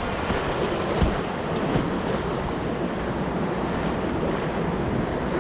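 Whitewater of a river rapid rushing steadily around the kayak, with wind noise on the microphone. A brief sharp knock about a second in.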